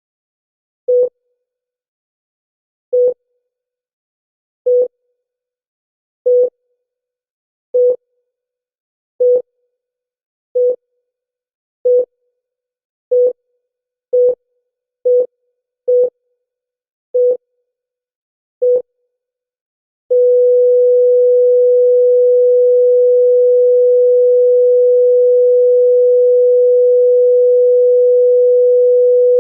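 Electronic heart-monitor beeps on one pitch, quickening from about one every two seconds to nearly one a second. About twenty seconds in they give way to one unbroken steady tone: the flatline that signals the heart has stopped.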